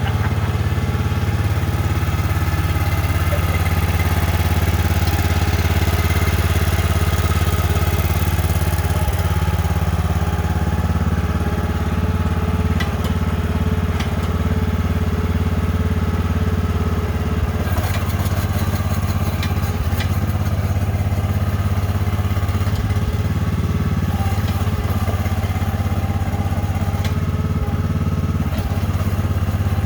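Excavator engine running steadily at an even speed, with a few light clicks and rattles about halfway through.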